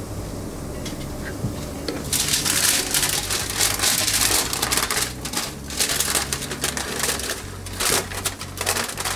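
Aluminium foil crinkling and crumpling in quick, irregular crackles as a seasoned potato is wrapped in it, starting about two seconds in.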